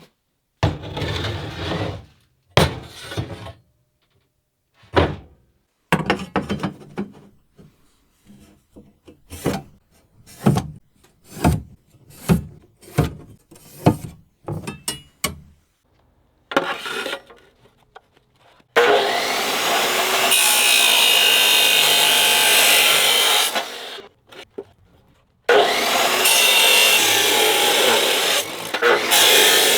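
Knifemaking shop tool work: a run of short, separate rasping strokes with gaps between them, then two long stretches of steady abrasive noise, the first starting about 19 seconds in and the second about 25 seconds in.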